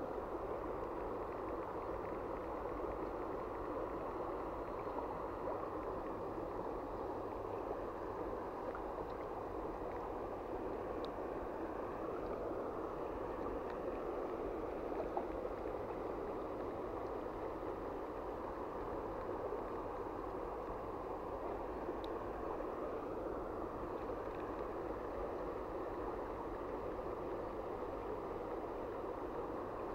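Shallow stream water rushing steadily over a rocky riffle.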